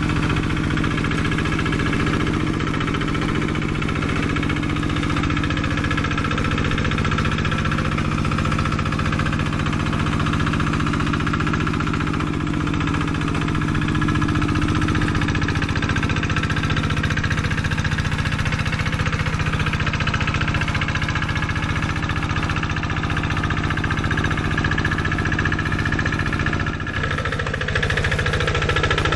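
Single-cylinder Kubota diesel engine of a Quick G1000 Boxer hand tractor running steadily under load while it levels a flooded rice paddy. Its note dips briefly and shifts about two to three seconds before the end.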